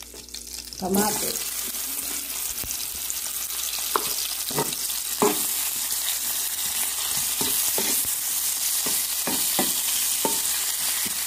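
Chopped onion and tomato dropping into hot cooking oil about a second in and sizzling steadily as they sauté, with a spatula knocking and scraping against the pan as they are stirred.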